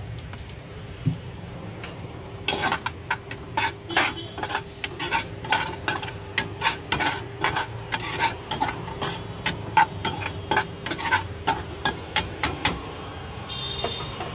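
Steel spoon stirring chopped vegetables in a metal frying pan, scraping and tapping against the pan about two to three times a second for about ten seconds before stopping near the end.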